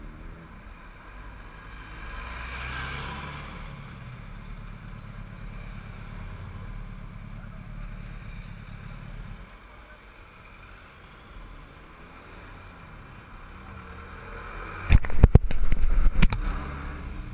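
Road traffic passing close by with a motorcycle engine idling. Near the end, a burst of loud knocks and bumps as the camera is handled and moved.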